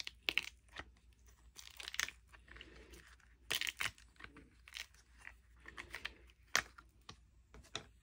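Silicone coaster mold being peeled and flexed off a cured epoxy resin coaster: irregular short peeling, crackling and clicking sounds as the mold lets go. The mold grips tightly, a hard release.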